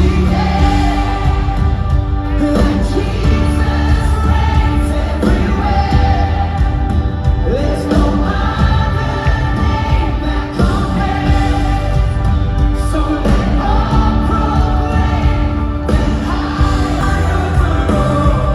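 Music with singing voices over a strong bass.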